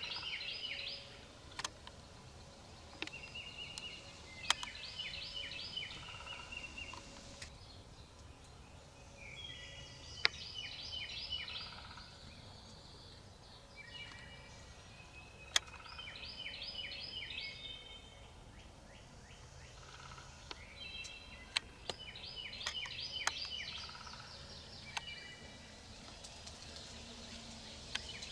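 Eastern wild turkey gobbler gobbling again and again, about five rattling gobbles spaced several seconds apart, with a few sharp clicks between them.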